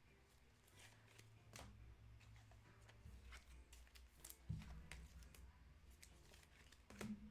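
Faint handling of trading cards: scattered soft clicks and slides as cards are flipped through, with a soft knock about four and a half seconds in.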